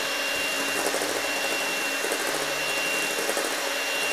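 Electric hand mixer running steadily with a thin, steady high whine, its beaters whipping egg whites and sugar in a stainless steel bowl toward stiff peaks.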